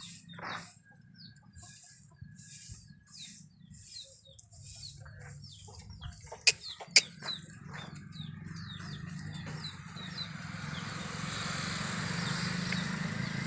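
Birds chirping in many quick, short falling calls, with two sharp clicks about half a second apart midway and a rising hiss of noise building toward the end.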